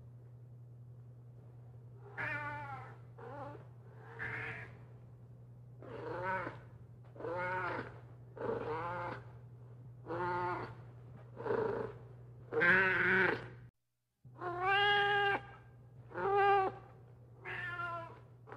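A domestic cat meowing over and over, about a dozen drawn-out meows roughly every second or so, over a steady low hum. The sound cuts out briefly just after the middle.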